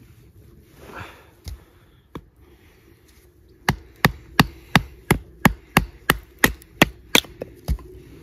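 A knife being batoned into a small wet log: a wooden baton strikes the spine of the blade to split the wood. A few scattered knocks come first, then a quick run of about a dozen sharp wooden knocks, about three a second, starting about halfway in.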